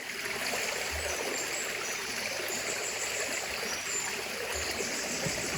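Small woodland stream running, a steady rush of water.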